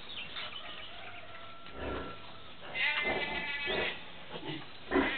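Farm animal calling: a wavering, bleat-like cry about three seconds in, then a shorter one near the end. A dull low thud comes a second or so earlier.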